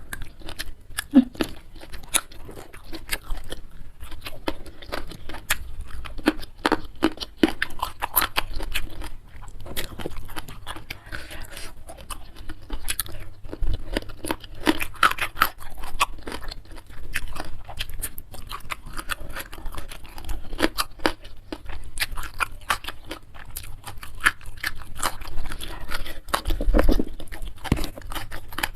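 A person chewing and crunching food close to the microphone, with a steady stream of crisp crunches and mouth sounds.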